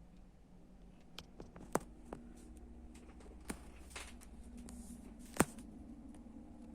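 Handling noises from a pram: scattered sharp clicks and light knocks, about half a dozen, the loudest about five and a half seconds in, over a faint low hum.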